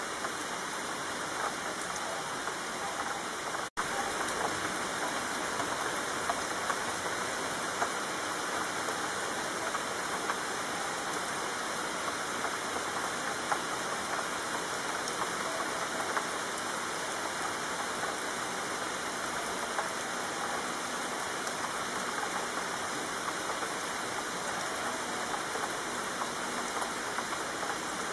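Steady rainfall: a dense, even hiss of rain with scattered small drop taps, broken once by a split-second gap a few seconds in.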